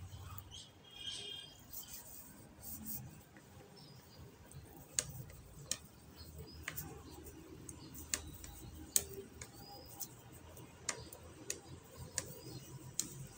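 Metal knitting needles clicking against each other at irregular intervals, about once a second and more often in the second half, as stitches of fabric strip are knitted.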